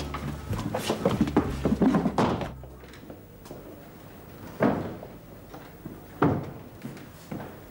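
A busy, clattering murmur that stops about three seconds in, then two loud door thuds about a second and a half apart, each with a short fading echo.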